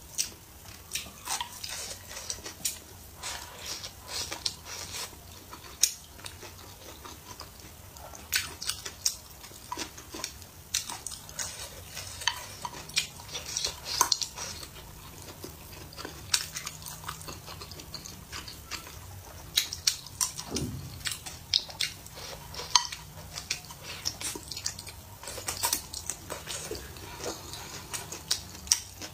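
A person eating: wooden chopsticks click and scrape against a ceramic bowl while food is chewed, in many short, irregular clicks.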